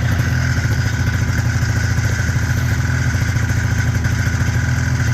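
A 1990 Arctic Cat EXT 530 snowmobile's two-stroke twin engine running steadily at an even pitch, with a steady high whine above the engine note.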